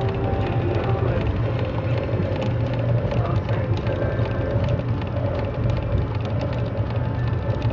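A boat's motor running steadily with a constant low hum, under a wash of water and wind noise.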